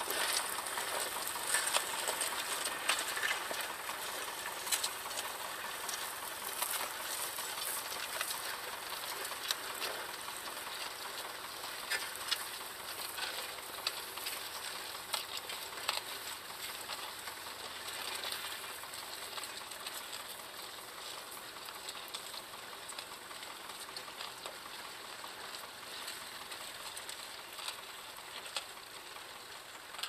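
Small vintage tractor engine running as it pulls a mounted plough through stubble, a steady crackling clatter that slowly fades as it moves away.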